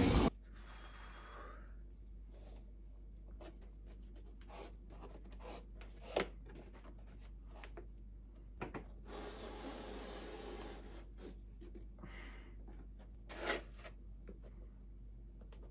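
Hands handling a black leather sneaker: soft rubbing and scattered small clicks and taps, with a longer stretch of rubbing near the middle and two sharper knocks, over a faint steady low hum.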